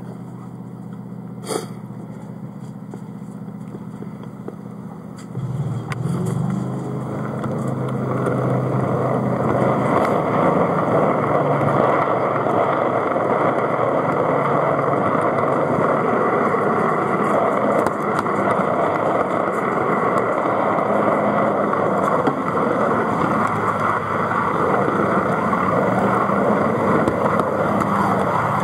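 O gauge model train running on garden-railway track, pushed by an Ixion Hudswell Clarke locomotive. It starts as a low steady hum with one click about a second and a half in. From about five seconds in the train gets moving, and the noise of motor, gears and wheels on the rails builds to a steady rumble.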